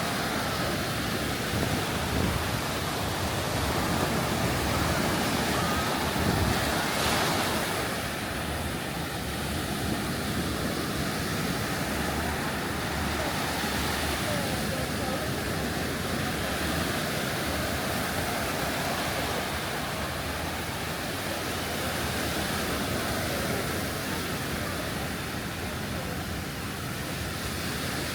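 Surf washing onto the beach: a steady rush of breaking water and wind that swells a little a few seconds in.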